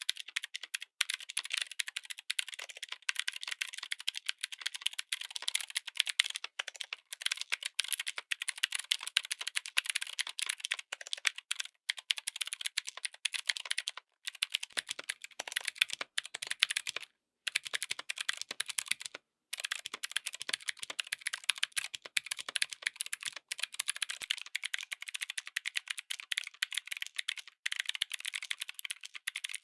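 Typing on a mechanical keyboard fitted with clicky switches: a dense, continuous run of sharp keystroke clicks. It stops briefly about 14, 17 and 19 seconds in.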